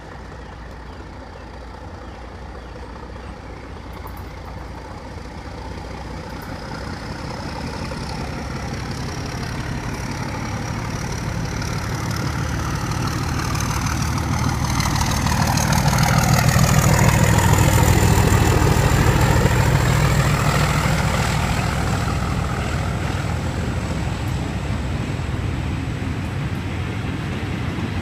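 A convoy of diesel locomotives, Class 26 26038 among them, approaching and passing: a deep engine throb and wheel-on-rail noise grow steadily louder to a peak about two-thirds of the way in, then ease a little. A thin high whine rises slowly in pitch as the train comes in.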